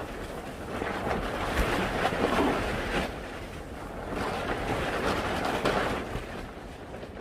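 Wind blowing in surging gusts over open water, buffeting the microphone, swelling and easing every second or two.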